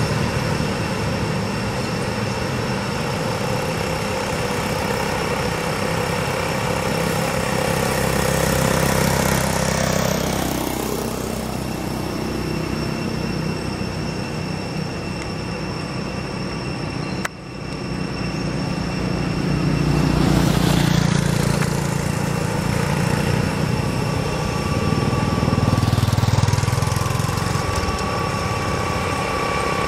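Road traffic: engine rumble of passing vehicles that swells and fades several times, over continuous background noise with a few thin steady high-pitched tones. There is a brief abrupt drop about two thirds of the way through.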